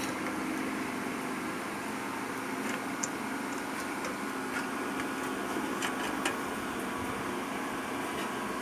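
Steady mechanical hum of a fan or air conditioner, with a few faint clicks and taps from small PC connectors and cables being handled and plugged in.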